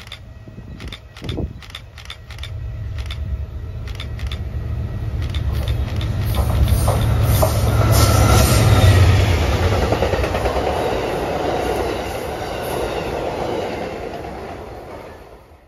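Amtrak GE P42DC diesel locomotives passing at the head of a passenger train: the engine rumble and wheel noise build up, are loudest about eight seconds in, then fade away as the train goes by.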